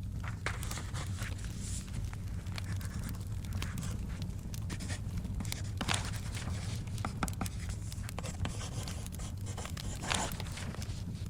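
Paper rustling and scratching, with a louder rustle like a page being turned about halfway through and another near the end. Small scattered crackles of a fire and a steady low rumble run underneath.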